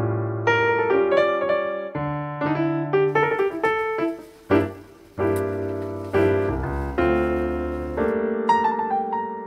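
Background piano music: a gentle melody of separate sustained notes, played without a break.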